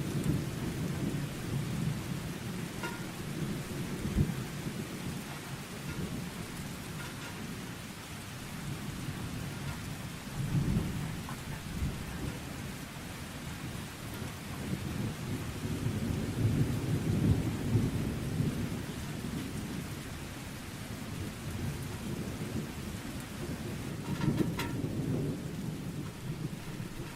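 Steady rain hissing, with low thunder rumbling underneath and swelling up several times.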